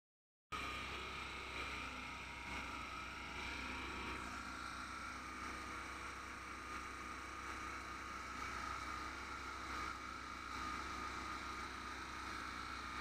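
Paddy thresher running at working speed while being fed with crop: a steady machine drone with a constant high whine over it.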